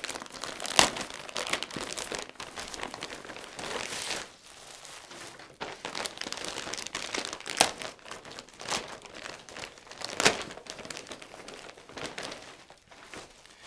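Clear plastic bags crinkling and rustling as folded shirts are slid out of them and the bags are handled, with a few sharper, louder crackles along the way.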